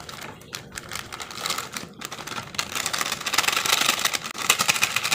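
Foil milk-powder sachet being torn open and then crinkled and squeezed as the powder is shaken out into a plastic bowl. Scattered crackles at first, turning into a dense, rapid crinkling from about halfway through.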